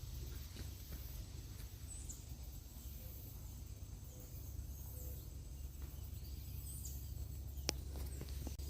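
Quiet outdoor ambience at a pond bank: a steady low rumble, with two faint, short, high bird chirps a few seconds apart and a single sharp click near the end.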